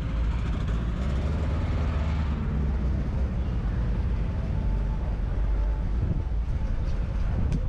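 Steady low rumble of wind on the microphone, with faint crowd voices.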